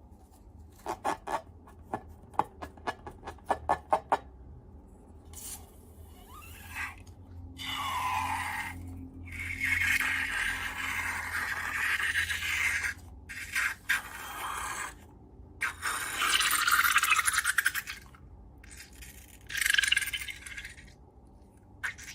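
Slime being worked by hand: a quick run of sharp clicks and pops at first, then several longer wet scraping, squishing passages.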